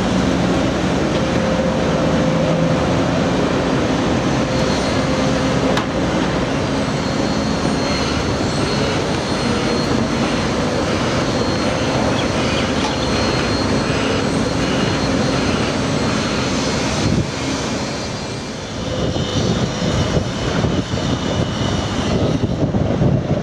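Comeng electric suburban train running along the platform, a steady mechanical hum with a few held tones. About 18 seconds in it gives way to gusty wind buffeting the microphone.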